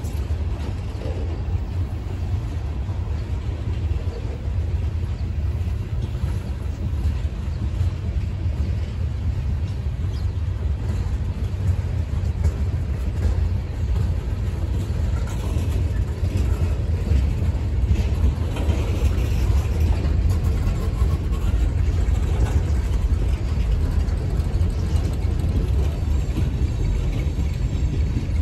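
Freight train of tank cars rolling past: a steady low rumble of wheels on the rails, growing a little louder about halfway through.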